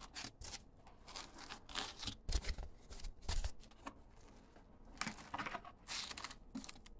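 Foam packing inserts rustling and scraping in a cardboard box as a layer is lifted out and a part is pulled from its foam cutout, with two dull bumps a little over two and three seconds in.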